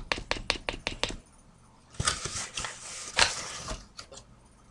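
Tablespoon measure scooping flour: a quick run of about ten light taps in the first second, then two short rustling scrapes about two and three seconds in.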